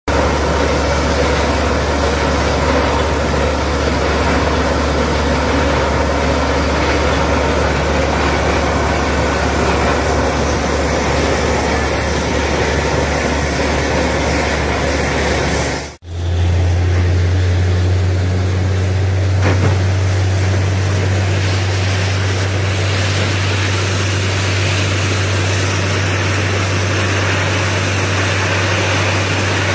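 Truck-mounted borewell drilling rig running steadily: a deep engine and compressor drone under the hiss of air blowing cuttings and water up out of the bore. About halfway through the sound cuts out for a moment and comes back with the drone a little higher in pitch.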